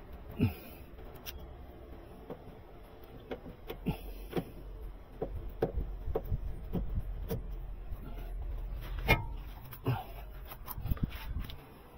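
Irregular clicks and clunks of hand work on a car's steering rack as it is turned and adjusted, sparse at first and denser from about four seconds in, with a low rumble underneath and one sharper knock near the end.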